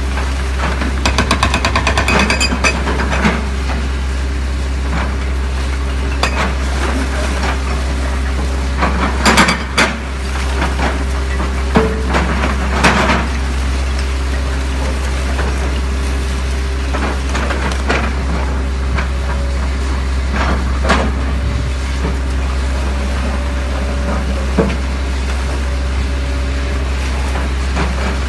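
Doosan 225LC crawler excavator's diesel engine running steadily while it demolishes masonry. A hydraulic breaker hammers rapidly for the first couple of seconds, then concrete and brick rubble crashes and clatters down several times.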